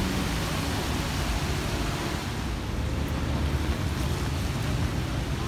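Heavy rain falling, a steady hiss with a low rumble underneath.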